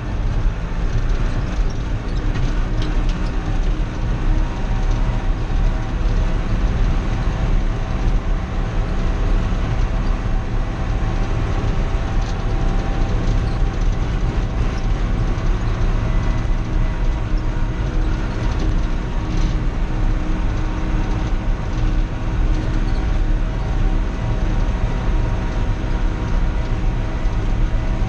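Old John Deere industrial tractor's engine running steadily at road speed, heard from inside the cab, with rattles and knocks from the machine on a gravel road.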